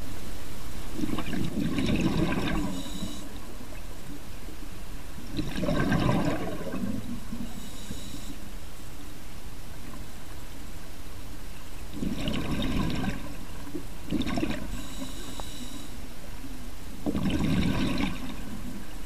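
Scuba diver breathing through a regulator underwater: a gurgling burst of exhaled bubbles roughly every five seconds, four in all, each followed by a short hiss from the regulator.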